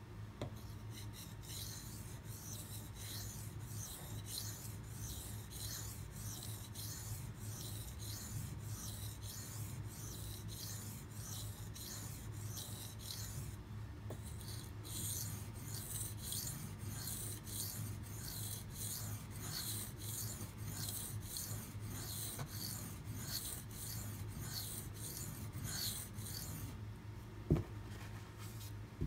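Steel kitchen knife blade scraped back and forth across a wet whetstone (water stone) in quick, even sharpening strokes, grinding the bevel down to the edge. There is a brief pause about halfway. The strokes stop shortly before the end, followed by a single sharp knock.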